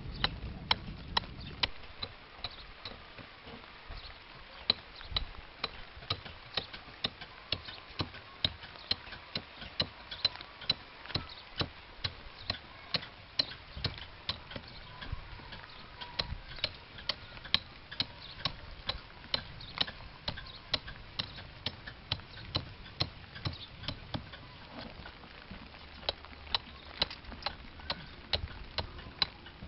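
Iron stone-carving hammer striking and chipping a block of stone being shaped into a stone cooking pot: a steady run of sharp taps, about two to three a second.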